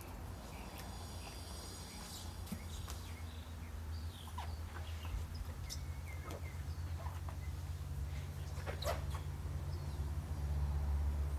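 Scattered short animal calls over a steady low rumble that grows louder about halfway through and again near the end.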